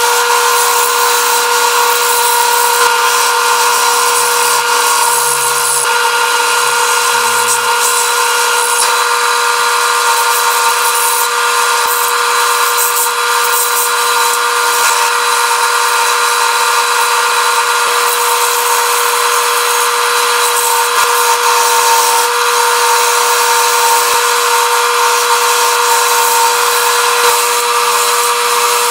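Wood lathe running with a steady motor whine while a hand-held turning tool cuts a spinning cedar and blue epoxy pen blank, giving a continuous scraping of wood and epoxy being shaved away.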